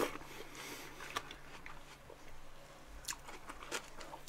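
Biting into a slice of watermelon with a juicy crunch at the start, then chewing the watery flesh with small wet clicks.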